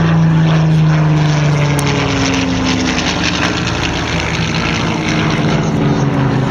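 Piston-engined WWII fighter running at power, a loud steady propeller drone whose pitch drifts slowly lower as it goes.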